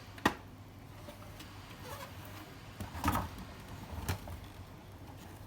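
Three faint, sharp clicks or knocks, just after the start, about three seconds in and about four seconds in, over a faint steady low hum.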